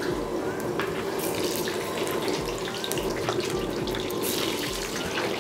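Mustard oil sizzling in a kadhai as bay leaves and red chillies fry in it: a steady hiss with many small crackles and spits.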